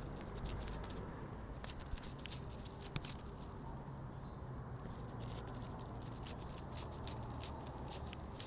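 Butterfly wing-flutter sound effect: irregular light ticks and crackles, unevenly spaced, over a steady low rumble.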